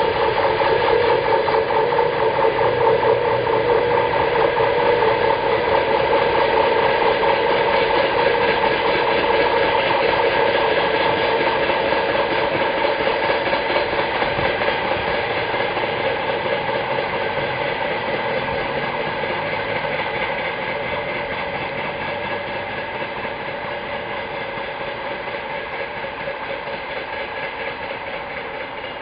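Hopper wagons of a freight train rolling past: a continuous rumble and rattle of steel wheels on the rails, growing gradually quieter.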